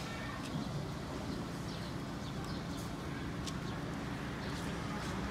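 Street-market background noise: a steady din of faint, distant voices with a few scattered sharp clicks.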